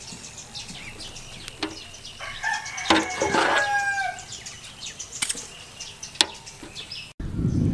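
Chickens clucking, with a rooster crowing once about three seconds in, and a few sharp clinks of a metal ladle against the steel pot.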